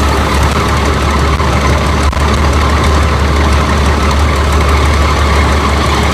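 Rice combine harvester engine running steadily and loudly, with one brief sharp knock about two seconds in.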